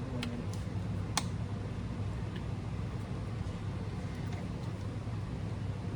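A steady low background hum with a few light clicks in the first second and a half, the sharpest about a second in.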